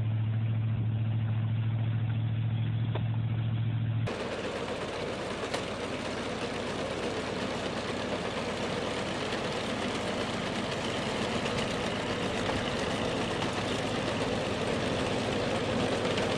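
A vehicle engine hums steadily while an ice-fishing shack is towed through slush. About four seconds in, the sound cuts to an orange four-track snowcat driving on a gravel road, its engine running under a steady clatter and rush from its tracks.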